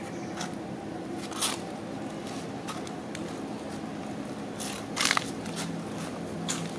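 A steady low hum runs under a few short crackling clicks, the loudest about five seconds in.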